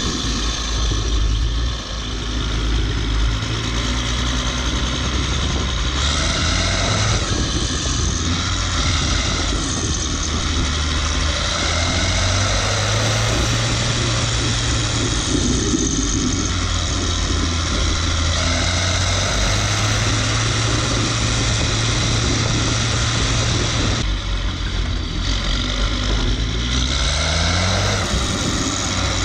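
Zetor 16045 tractor's turbocharged six-cylinder diesel, freshly overhauled, running while the tractor is driven, heard close to the exhaust stack. The engine note shifts about six seconds in, drops away about three-quarters of the way through, then rises again near the end as it is throttled up.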